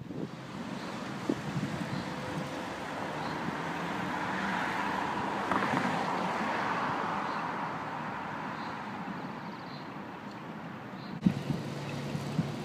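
Road traffic noise: a vehicle passes, its tyre and engine noise swelling and fading over several seconds. The sound changes abruptly near the end.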